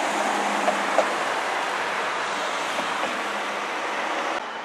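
Maserati GranTurismo V8 coupé passing close and driving away, its engine and tyre noise a dense rush that slowly fades. There are two short clicks about a second in, and the sound drops suddenly near the end.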